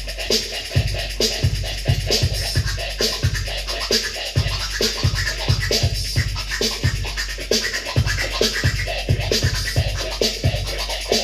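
Hip hop music: an instrumental section with a steady, repeating drum beat and turntable scratching over it.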